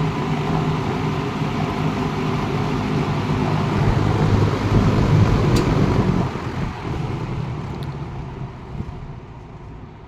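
Westinghouse AR20-1 20-inch box fan running on high speed, a steady rush of air over a low motor hum. About six seconds in there is a click and the sound fades steadily.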